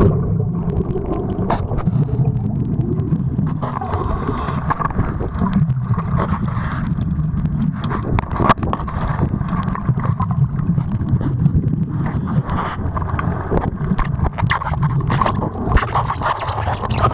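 Underwater noise picked up by a diver's camera: a steady low rumble of water with scattered clicks and scrapes.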